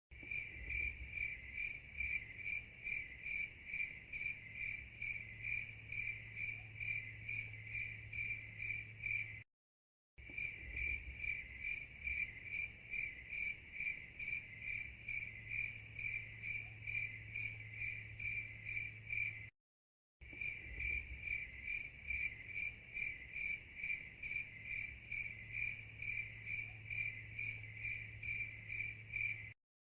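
Cricket chirping in a fast, even rhythm, about three high, trilling chirps a second. The sound drops out to dead silence twice, for about half a second each time, near 10 and 20 seconds in, as the recording loops.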